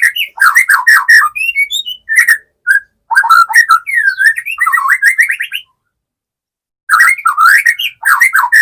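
White-rumped shama (murai batu) singing close by: quick, varied whistled phrases, sliding up and down and mixed with sharp clicks. The song breaks off for just over a second past the middle, then resumes.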